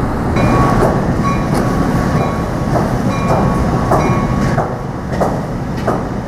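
Train passing close by: a loud, steady low rumble with irregular sharp clacks of wheels over rail joints, about two a second, and a faint high steady whine.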